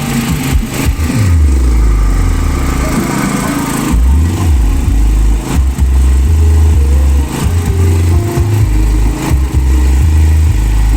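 Loud, bass-heavy music from a large carnival sound system (sound horeg), its distorted low bass notes shifting in steps, with a falling bass sweep about a second in.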